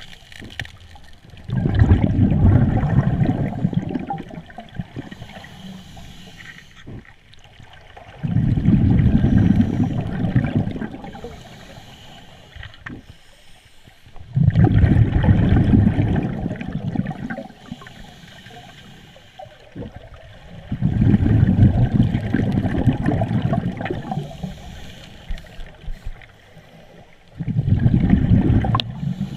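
Scuba diver breathing through a regulator underwater: five long bursts of exhaled bubbles, about six to seven seconds apart, with quieter stretches between them as the diver inhales.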